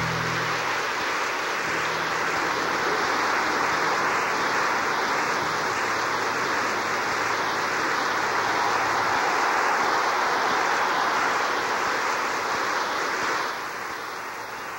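Live audience applauding and cheering at the end of a rock song, a dense steady clapping that eases off near the end. The band's last chord rings out faintly underneath for the first several seconds.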